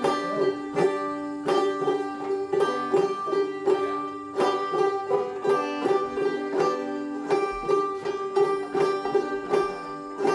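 Open-back banjo played clawhammer style, a steady rhythmic run of plucked notes repeating one phrase of an old-time tune, with drop-thumb notes worked in.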